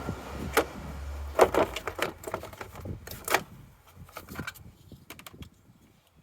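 A low hum that stops about a second and a half in, followed by a run of sharp clicks and clunks of things being handled, loudest around one and a half and three and a half seconds.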